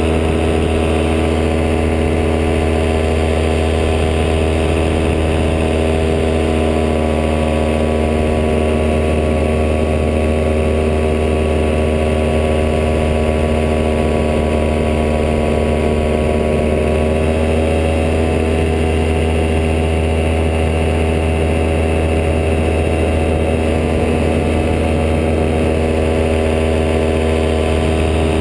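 Paramotor engine and propeller running steadily at cruise, a constant engine tone close behind the listener.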